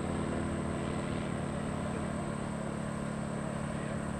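Interstate Cadet light plane's piston engine droning steadily overhead as it flies and banks.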